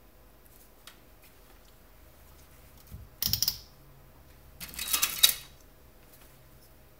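An Agilent U1273AX handheld multimeter being set down on the bench and its rotary switch turned: a short clatter about three seconds in, then a run of quick clicks about a second later.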